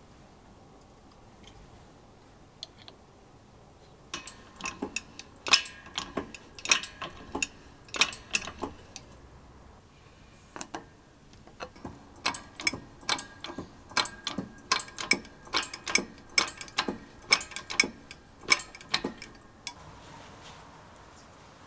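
Bench-top shop press working as a bearing is pressed onto an electric drill's armature shaft: two runs of sharp metallic clicks, about two to three a second, with a pause of a few seconds between them.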